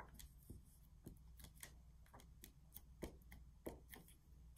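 Glue stick dabbed onto cardstock over and over: a run of faint, irregular taps, a few a second.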